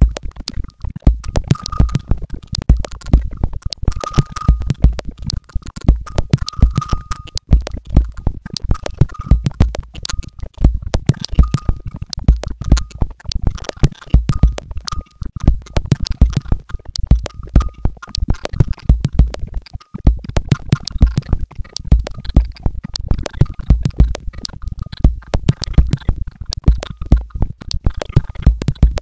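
Experimental electronic noise soundtrack: dense, continuous crackling clicks over a low, pulsing rumble, with a faint tone recurring about every two and a half seconds in the first half.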